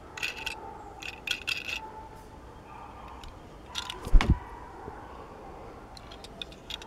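Light clicks and rattles of a die-cast metal toy car being handled in the fingers, with one dull thump about four seconds in.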